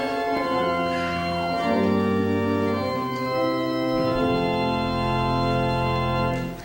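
Church organ playing the introduction to the opening hymn in held chords, with low bass notes coming in under them and a deeper bass note from about four seconds in. It breaks off briefly at the very end, ready for the singing to begin.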